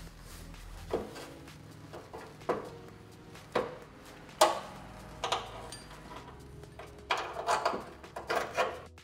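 Metal knocks and clunks of a Honda Super Cub C50 engine being worked into its frame mounts while the mounting bolt is pushed through the hanger. About a dozen irregular knocks, the sharpest about four and a half seconds in, with a quicker cluster near the end.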